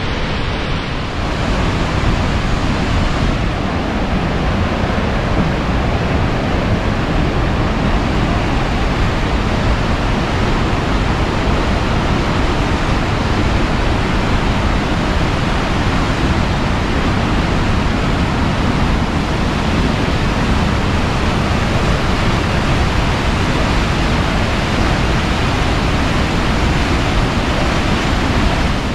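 Steady rushing of whitewater: the Yellowstone River's rapids pouring over the brink of the Upper Falls.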